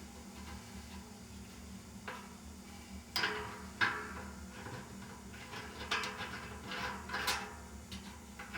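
A series of light clinks and knocks, about six spread irregularly, some ringing briefly, as small metal fittings are handled and set down, over a steady low hum.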